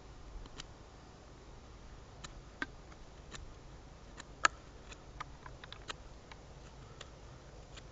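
A pocket knife whittling green sapling wood, making irregular small clicks and cracks as the blade bites and chips come off, the sharpest about halfway through.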